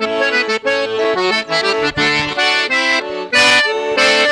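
Accordion (sanfona) playing a lively forró tune: quick runs of melody notes over held chords.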